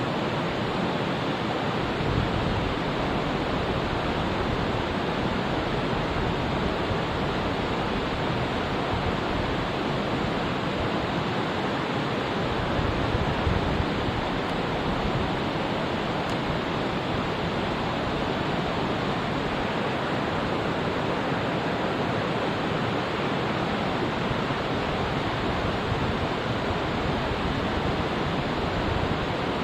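Mountain stream water rushing steadily over rocks, an even, unbroken hiss.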